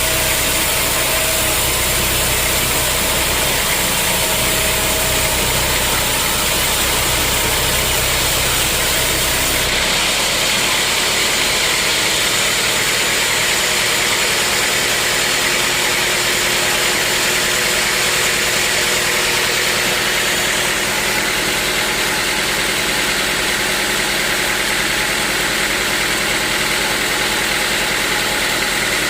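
Sawmill machinery running steadily, a constant engine-like hum under a loud hiss. About ten seconds in the low rumble drops away abruptly and the hiss grows, and the sound changes again around twenty seconds in.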